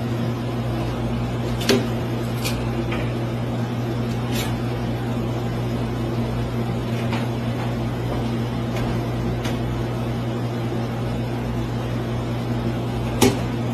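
Steady low electrical hum of an aquarium pump, with a few sharp clicks through it; the loudest click comes near the end.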